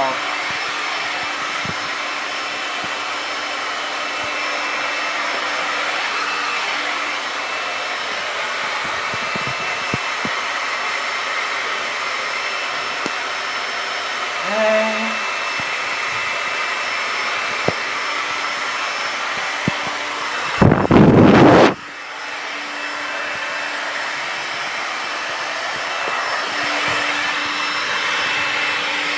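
Hair dryer running steadily: a rush of air with a thin steady whine. A short vocal sound comes about halfway, and about two-thirds of the way through a loud rush lasting about a second drowns out the dryer.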